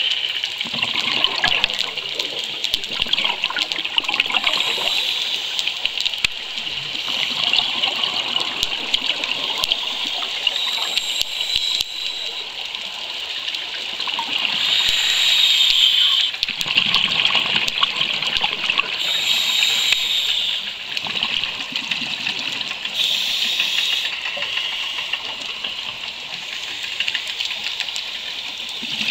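Scuba regulator breathing heard underwater: gushing, bubbling rush of divers' exhaled air bubbles, with louder surges every few seconds.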